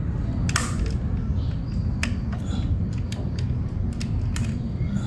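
Scattered clicks and creaks from a radio-controlled model construction vehicle's plastic mechanism, over a steady low rumble. The sharpest click comes about half a second in.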